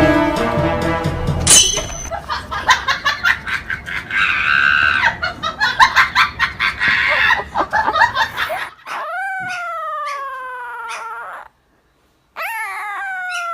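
A dog howling: two long howls, each rising at the start and then sliding slowly down in pitch, with a short silence between them. Before them, pop music cuts off and gives way to a stretch of short sharp noises and cries.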